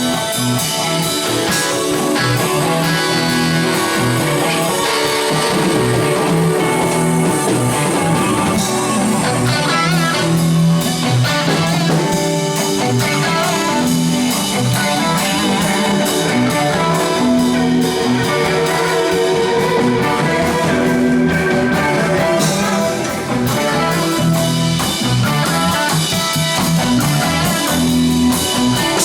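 Band jamming: electric guitar playing over bass and a drum kit, without a break.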